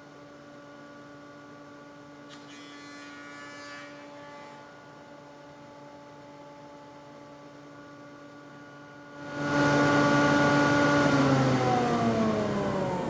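Woodworking machine's motor running with a steady hum, loud from about nine seconds in. It is then switched off and spins down, its pitch falling near the end.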